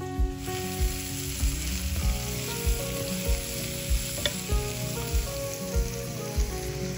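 Cauliflower frying in hot oil in a pan, sizzling steadily. The sizzle starts suddenly about half a second in, and there is one light tap a little past halfway.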